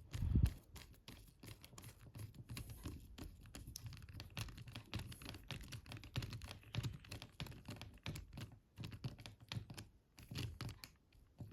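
A small screwdriver driving a screw into a mobile phone's plastic housing: a faint, dense run of small clicks and ticks, with a louder knock about a quarter second in.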